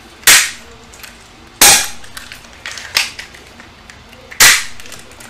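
Spring-powered HK VP9 airsoft pistol fired three times, each shot a sharp snap, with lighter clicks between the shots as the slide is cocked by hand.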